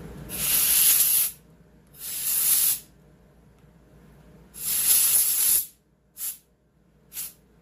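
Compressed air blown in three hissing bursts of about a second each, then two short puffs, blasting dirt out of the screws of a chainsaw being torn down.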